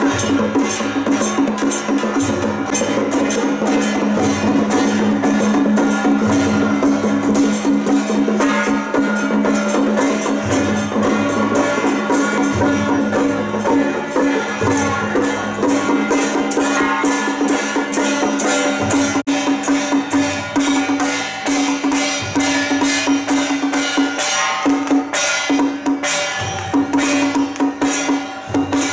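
Temple-procession percussion music: fast wood-block clicks and drums over a long-held melody line, with a brief break about 19 seconds in.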